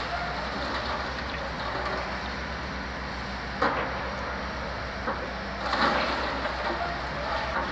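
Demolition of a brick building by a crawler crane's grapple: heavy diesel machinery runs steadily, with a sharp crack about three and a half seconds in and a burst of crunching, breaking debris around six seconds in.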